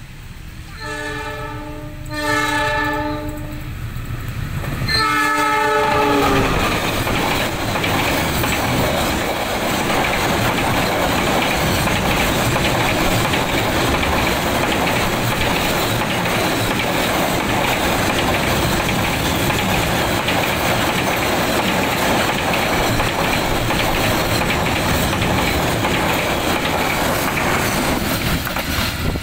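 Diesel locomotive horn of a KAI container freight train sounding twice back to back, then a third blast about five seconds in that drops in pitch as the locomotive passes. Then a loud, steady rumble and clatter of flat wagons loaded with containers and tank containers rolling past close by over the rails.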